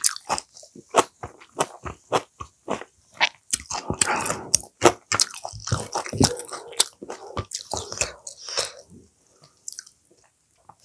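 Close-miked food sounds while a steamed pumpkin-leaf wrap (호박잎쌈) is put together with chopsticks: a run of sharp, wet clicks, then a denser crackle about four seconds in that thins out near the end.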